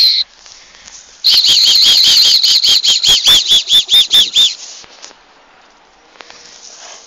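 Dog whistle blown hard in a string of short, shrill toots, about four a second, starting about a second in and stopping after about three seconds.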